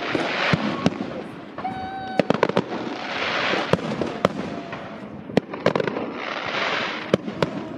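Fireworks display going off: a run of sharp bangs and cracks with three bursts of hissing crackle. About two seconds in, a short steady whistle sounds.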